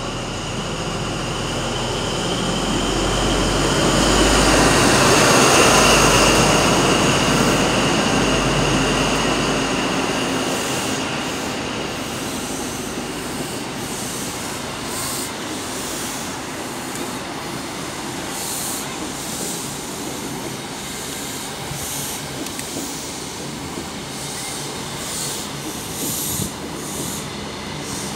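Class 43 HST power car with a Paxman VP185 diesel engine running past, loudest about five seconds in, with a high whine that drops in pitch as it goes by. Then the coaches roll past with a steady wheel rumble and irregular clicks over the rail joints.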